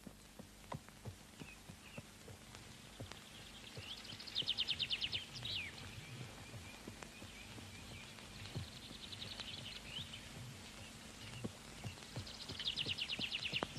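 Horses moving in snow, with soft, scattered hoof steps. Three high, fast-pulsing calls come about four seconds apart, each ending in a quick slide in pitch.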